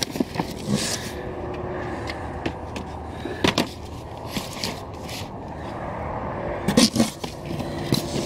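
Cardboard boxes and packaged figures being handled and shifted, with scattered scrapes and knocks, the loudest about three and a half seconds in and near the end. A steady low rumble runs underneath.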